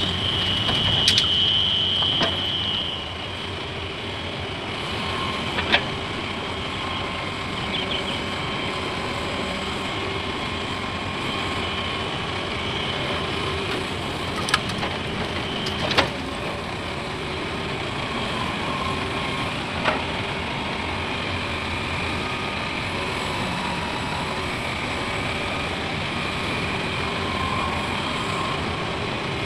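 Heavy diesel machinery running steadily, with a high whine in the first few seconds and a few sharp knocks.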